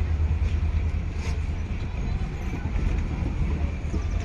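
A WDP4D-hauled passenger train with ICF coaches running past: a steady low rumble with a couple of sharp clacks from the wheels.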